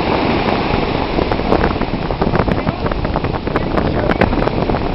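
Wind buffeting the camera microphone with crackling gusts, over the steady wash of surf breaking on the beach.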